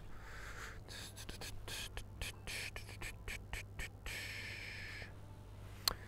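A quick irregular run of short rustling crackles, then about a second of steadier rustle, over a steady low hum, with one sharp click near the end.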